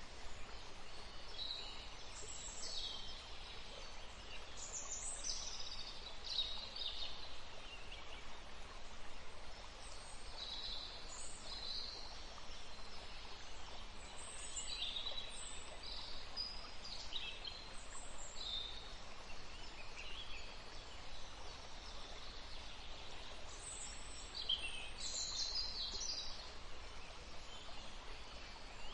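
Several birds singing and chirping in a forest: short high chirps and trills from more than one bird, scattered throughout, over a steady faint background hiss.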